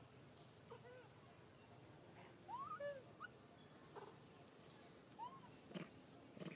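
Macaques giving a few faint, short squeaky coos that rise and fall in pitch, the loudest a little over two seconds in, with a couple of sharp clicks near the end.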